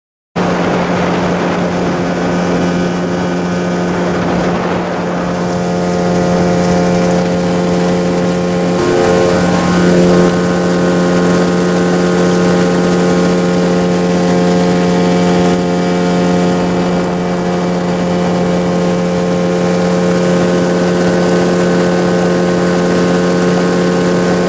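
Motorboat engine running steadily, heard from aboard the boat as a constant engine hum over water and wind noise. It starts abruptly about half a second in.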